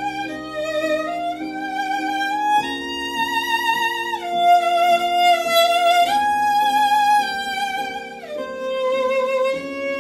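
Solo violin playing a slow melody of long, held notes with vibrato, gliding between notes. Lower sustained notes underneath change only every few seconds, like slow chords.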